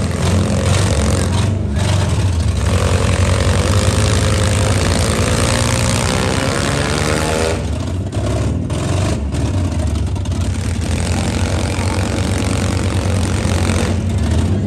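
Demolition derby cars (stock minivans, trucks and SUVs) with engines running loudly together, one engine revving up with a rising pitch about six to seven seconds in.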